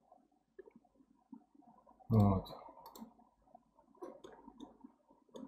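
Computer mouse clicking several times in quick succession about two seconds in, with a couple more clicks near the end.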